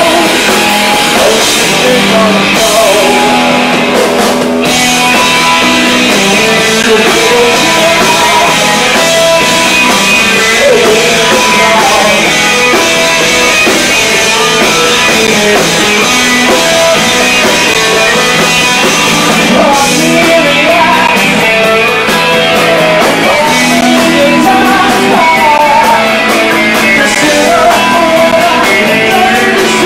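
Live rock band playing loud: electric guitar and drum kit with a singer's voice, picked up by a camcorder's built-in microphone, so it sounds thin with little bass.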